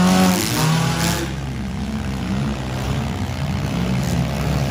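Engines of several four-cylinder demolition derby cars running and revving together, with the pitch swinging up and down about a second in.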